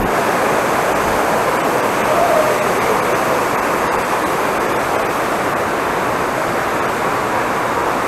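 Fast mountain stream rushing over rocks below waterfalls: a steady, even rush of water.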